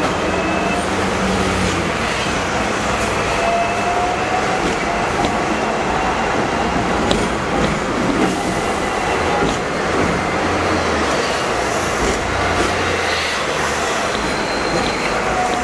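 Hong Kong double-decker electric tram running along its street track, heard from on board: a steady rumble of the car on the rails with scattered small clicks.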